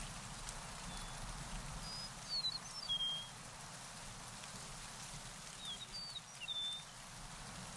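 A bird singing two short phrases of quick, high whistled notes, about three seconds apart, over a steady outdoor hiss.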